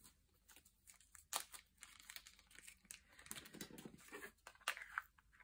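Faint crinkling of a small plastic bag and rattling of resin diamond-painting drills handled in a plastic sorting tray, with irregular sharp clicks and a denser rustle a little past the middle.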